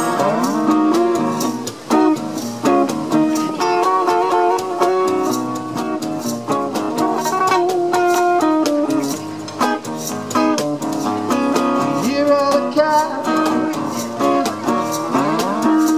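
Acoustic guitar playing an instrumental passage with sliding notes, over a steady cajon beat.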